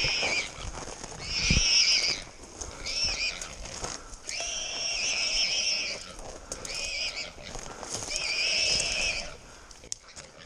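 Feral hog caught and held by hounds, squealing: about half a dozen long, high-pitched squeals in quick succession, stopping near the end.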